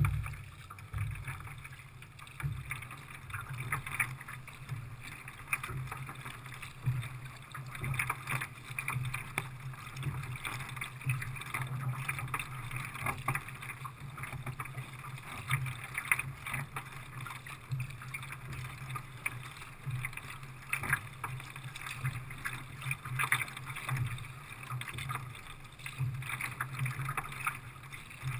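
Water lapping and splashing against the hull of a kayak under way, in short uneven surges, over a low steady rumble.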